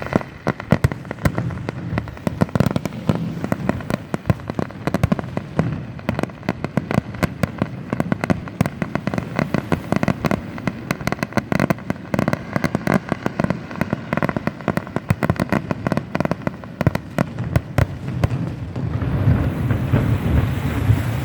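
Fireworks going off in a rapid, dense string of cracks and bangs, many a second, with no pause. Near the end the cracking thins out and a steady rushing noise takes over.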